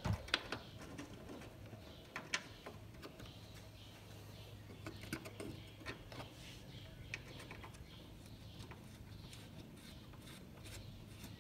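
Faint, scattered clicks and taps of hand work on a car's headlight mounting, over a low steady hum.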